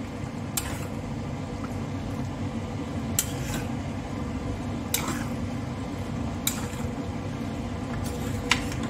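Metal spoon clinking and scraping against a stainless steel pan while raw chicken pieces are mixed with ground spices, about six sharp clinks spread through. A steady low hum sits underneath.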